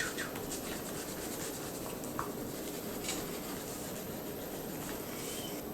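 A pencil scratching steadily and faintly across paper as a worksheet is coloured in, with a single small tick about three seconds in.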